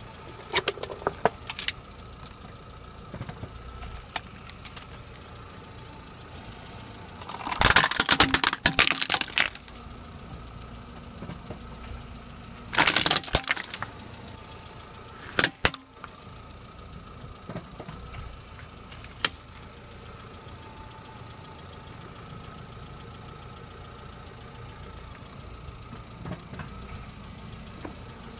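A car tyre rolling slowly over a lidded paper cup and a plastic toy crocodile, crushing them: a long burst of cracking and crunching about a quarter of the way in, a shorter one near the middle, and a few sharp clicks. Under it the car's engine runs steadily.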